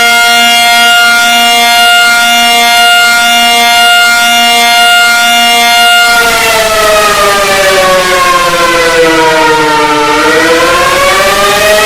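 Loud civil-defense-style alarm siren. It holds a steady chord of several tones for about six seconds, then the whole chord slides down in pitch and climbs back up near the end.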